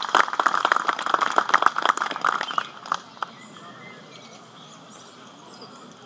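Audience applause that dies away about two and a half seconds in, followed by quiet open-air background with faint bird chirps.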